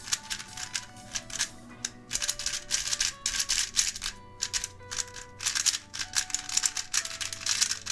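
A Gans 356 Air UM magnetic speedcube being turned rapidly by hand: quick, irregular plastic clacks of the layers turning, with background music underneath.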